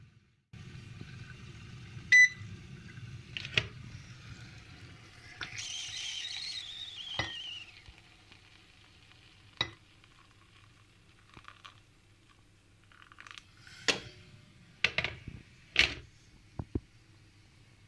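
Kitchen work: an appliance hums for the first eight seconds, with a short sharp electronic beep about two seconds in. After that come scattered clinks and knocks of dishes and utensils, several close together near the end.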